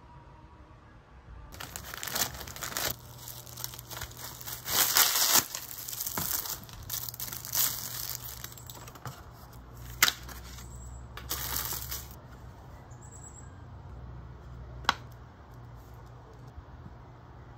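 Thin clear plastic packaging bag crinkling and rustling as a silicone phone case is pulled out of it, starting a second or two in and lasting about ten seconds. There are two sharp clicks, the second a few seconds after the rustling stops.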